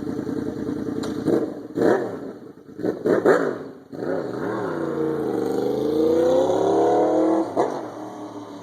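Ford Shelby GT350's 5.2-litre flat-plane-crank Voodoo V8 revved in several short blips, then pulling in first gear with its pitch rising for about three seconds, one more quick blip, and then quieter.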